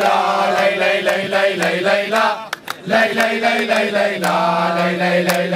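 A crowd of men chanting together in unison, holding long notes, with hand claps. There is a short break in the chant about halfway through.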